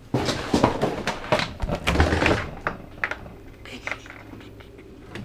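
Kitchen handling noise: a quick run of knocks, clinks and rustles as things are picked up and moved, thinning out and growing fainter in the last couple of seconds.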